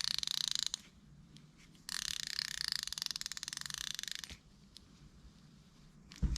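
Star drag clicker of a Shimano Calcutta Conquest BFS baitcasting reel being turned, a very soft, fast run of clicks: briefly at first, then again for about two and a half seconds. A low handling bump comes near the end.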